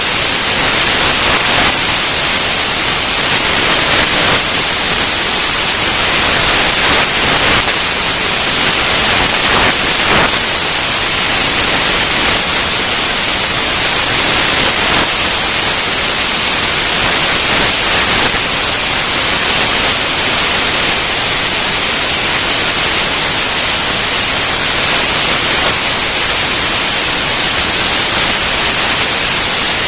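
Loud, steady hiss of even noise, strongest in the treble, unbroken throughout.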